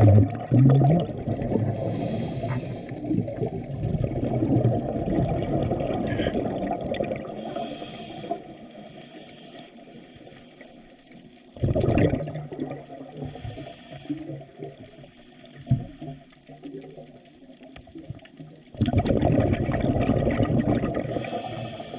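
Dull, muffled churning and gurgling of moving water, fading after the first few seconds, swelling briefly about twelve seconds in and growing louder again near the end.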